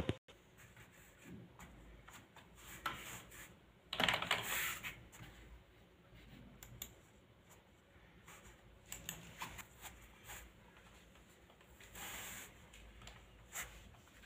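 Typing on a desktop computer keyboard: scattered, light key clicks, with a louder burst of noise about four seconds in and a smaller one around twelve seconds.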